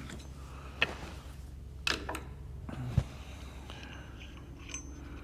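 About four sharp clicks and knocks of small metal parts and tools being handled on a workbench during a diesel injection pump teardown, the heaviest knock about three seconds in, over a steady low hum.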